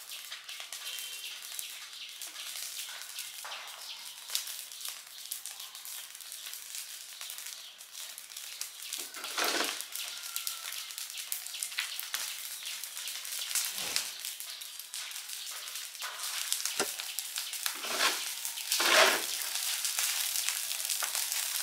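Oil-soaked rubbish pile burning with a dense, steady crackle, with a few louder surges in the second half.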